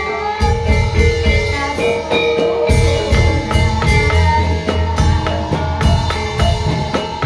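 Music with steady drumming and a melody over it; the low drums drop out briefly near the start and come back strongly a little under three seconds in.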